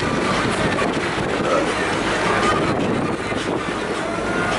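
Steady rush of wind buffeting the microphone, with water noise from a boat moving over choppy sea.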